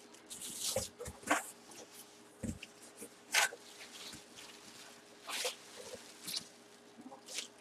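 Plastic wrapping around a football helmet crinkling in short rustles about a second apart as it is handled, with a soft low thump about two and a half seconds in.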